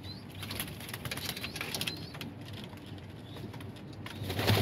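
Domestic pigeons fighting in a wooden nest box: scuffling with repeated pecks and wing slaps, with pigeon cooing. It grows louder near the end.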